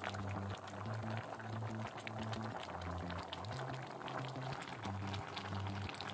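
Fish-and-vegetable broth boiling in a pot: a steady crackle of small bubbles popping. Low notes of background music change pitch underneath.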